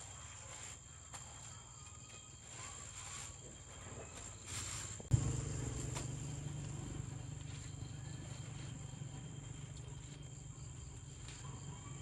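Crickets trilling steadily, with light rustling of handling. A sharp knock about five seconds in is followed by a low steady rumble.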